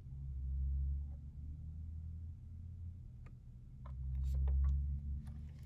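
Quiet low rumble that swells twice, with a few faint ticks: handling noise from a printed paper sheet held in the hand close to the microphone.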